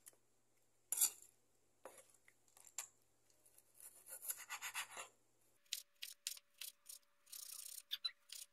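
Large kitchen knife slicing raw beef into thin strips on a cutting board: repeated short slicing and scraping strokes, with sharp taps of the blade against the board.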